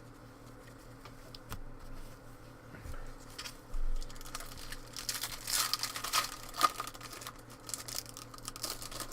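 Trading-card pack wrapper being crinkled and torn open, with the loudest crackling a little past the middle, among small clicks of cards being handled.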